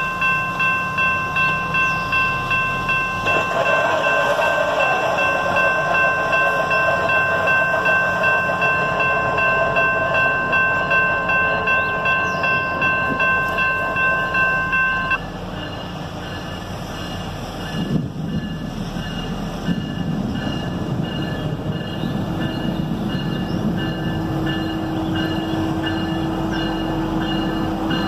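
Diesel freight locomotive's horn sounding one long, steady chord of several notes that cuts off about fifteen seconds in. The train's rumble then grows louder as it draws near, with a steady low hum.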